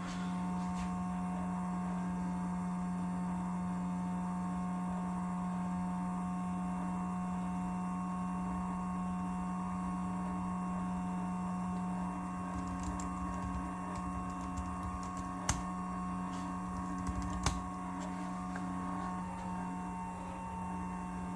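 Steady electrical hum, with a few scattered computer-keyboard clicks in the second half.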